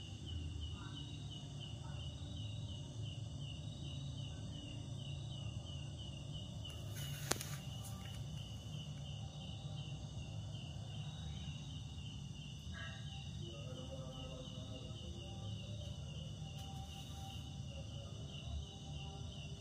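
Steady, evenly pulsed insect chirping at one high pitch over a low background rumble, with a single sharp click about seven seconds in.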